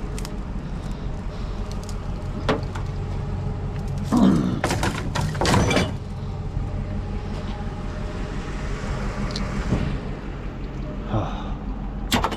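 A truck engine idling steadily, with several knocks and a clatter of objects being handled, the busiest stretch about four to six seconds in.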